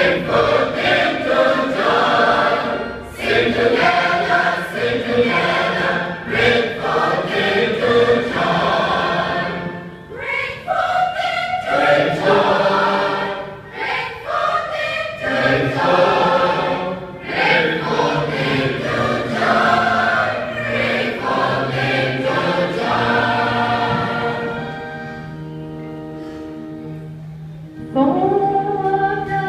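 Church choir singing an anthem in parts, many voices together in shifting chords. Near the end the choir drops to a softer held chord for about three seconds, then comes back in at full strength.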